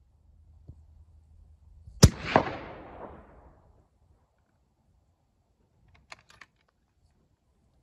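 A single rifle shot from a suppressed Tikka T3x CTR in .223 about two seconds in. It is a sharp crack, with a second crack about a third of a second later and an echoing tail that dies away over about a second and a half.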